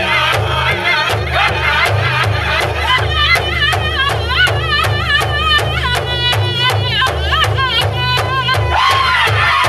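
Powwow drum group of men singing an intertribal song in high voices around a big drum, striking it together in a steady beat of about three strokes a second.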